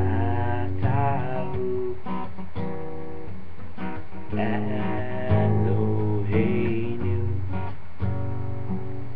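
Acoustic guitar strummed in a steady groove, with a man's voice singing a melody over it in places.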